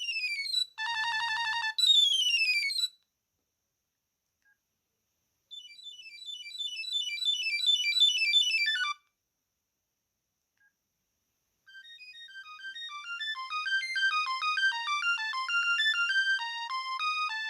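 Sony Ericsson T610 ringtones playing one after another. First a short electronic tune with falling sweeps, then after a pause a rising tune that swells and ends on a falling glide. After another pause a third melody starts quietly and grows steadily louder.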